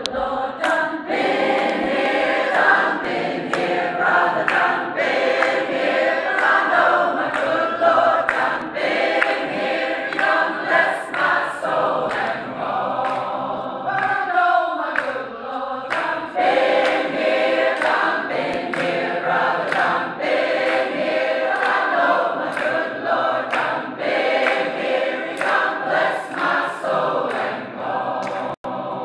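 A large gospel choir singing a cappella in harmony, with sharp hand claps keeping a steady beat of a little over one a second.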